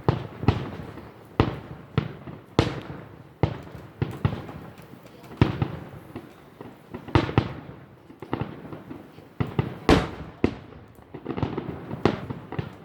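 Fireworks display: aerial shell bursts going off one after another at about one a second at uneven spacing, each bang trailing off in a short rumble.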